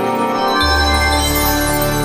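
Music with held chords; a low bass comes in about half a second in, with busier high notes above it.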